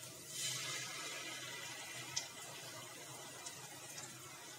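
Onions frying in hot oil in a pan, sizzling; the hiss swells about half a second in as ground spices and wet spice paste are tipped into the oil, then settles to a steady, quieter sizzle.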